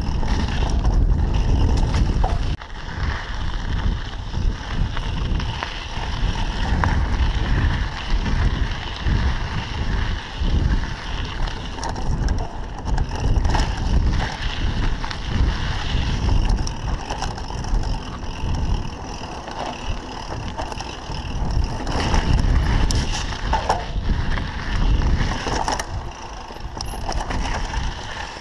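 Mountain bike riding fast down a dirt singletrack: tyres rolling over dirt and rocks, with the bike rattling over bumps throughout. Wind rumbles on the microphone, heaviest for the first couple of seconds.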